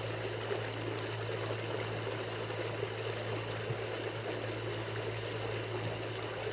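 Water rushing and splashing in the wake and along the hull of a small boat driven at speed by an ePropulsion E Lite electric outboard in sport mode, with a steady low hum underneath.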